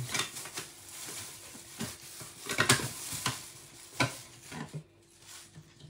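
Scattered knocks and clicks of hands handling a stainless-steel centrifugal juicer's lid, over a faint steady hum; the juicer's motor is not running.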